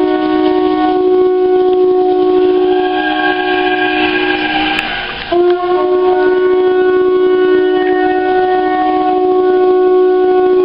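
Conch shell trumpets blown in long held blasts, two pitches a little apart sounding together. The blasts fade out about five seconds in and start again at once.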